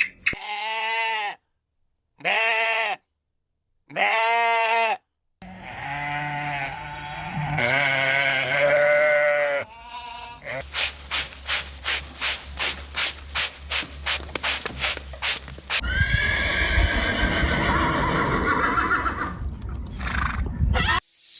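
Farm animals calling, in several short clips cut one after another. Near the start there are three separate calls of about a second each. These are followed by a longer mix of calls and a regular pulsing of about two or three beats a second.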